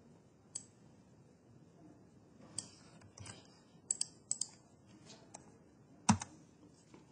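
Scattered clicks of a computer mouse and keyboard keys, one or two at a time with pauses between them. The loudest is a heavier key strike about six seconds in, followed by a lighter click.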